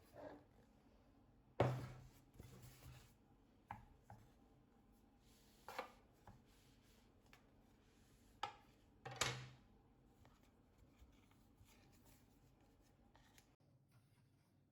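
A knife knocking on a cutting board, a few scattered strokes with light scraping, as burma baklava rolls are cut into pieces; two strokes are louder than the rest.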